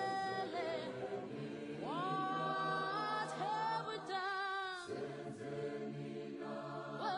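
Unaccompanied choral singing: several voices holding long notes in harmony, with vibrato, over a sustained low hum. A new phrase begins with notes sliding up about two seconds in.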